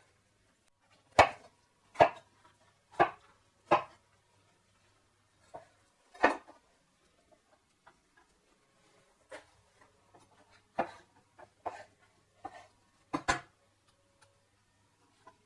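Chef's knife cutting a bell pepper on a bamboo cutting board: sharp knocks of the blade on the wood, four about a second apart early on, then one on its own and a scattered run of them in the second half.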